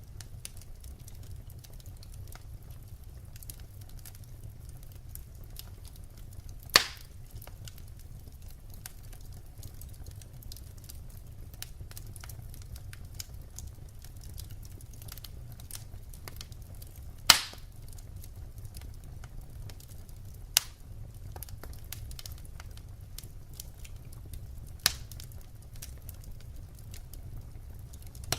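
Wood fire crackling: a steady low rumble under a dense run of small ticks, with four sharp pops spaced through it, the loudest two about seven and seventeen seconds in.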